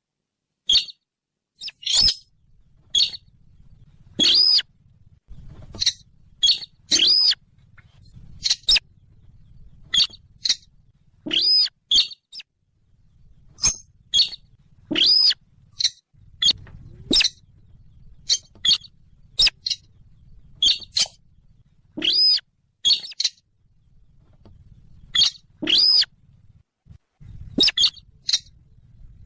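Bird lure call for night hunting: short, sharp bird calls, many with a quick rising-and-falling chirp, repeated every second or two.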